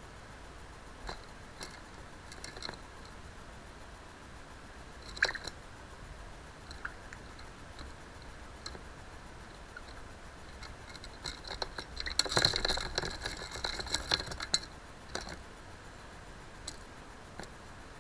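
Annoyed pet budgie making scattered short clicks and brief chirps, then a dense flurry of rapid clicking and scratchy chatter about twelve seconds in.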